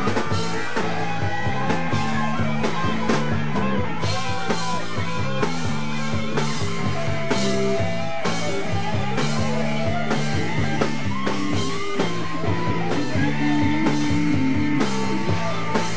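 Live rock band playing, with electric guitars, bass guitar and a drum kit keeping a steady beat.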